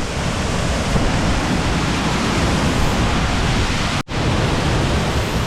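Waterfall in full rainy-season flow, a loud, steady rush of falling water, cut off for an instant about four seconds in.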